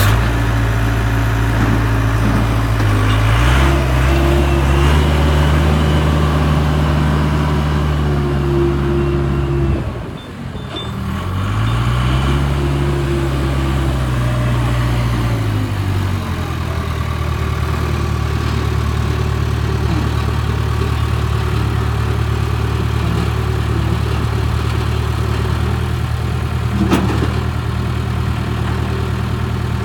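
Case 580 Super K backhoe's diesel engine running, revved up twice for several seconds each time, then settling back to a steady idle. There is a single sharp click near the end.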